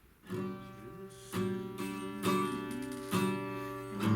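Acoustic guitar strumming chords, starting just after the opening moment, with a fresh strum about once a second and the chords ringing on between.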